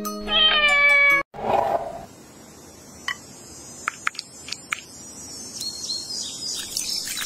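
A loud pitched sound about a second long, rising slightly and cut off sharply, then a short rough burst of noise. After that it is quieter, with a few light clinks of a metal spoon on a ceramic dish.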